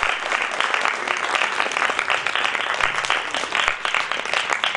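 Audience applauding steadily: a dense mass of clapping, with single claps standing out more near the end.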